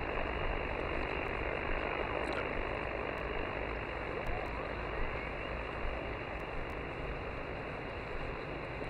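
Steady hiss of an Elecraft KX3 HF transceiver's receiver: band noise with no station on frequency, cut off above the voice range.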